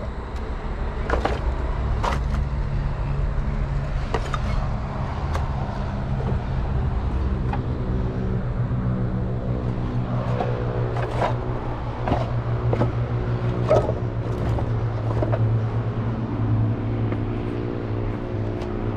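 Scattered knocks and scrapes of footsteps and handling on broken clay roof tiles and rubble, over a steady low hum that grows stronger about halfway through.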